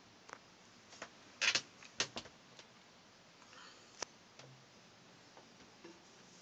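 A handful of light, sharp clicks and knocks over a faint steady hiss. The loudest come in a quick cluster about one and a half to two seconds in, with one more sharp click around four seconds.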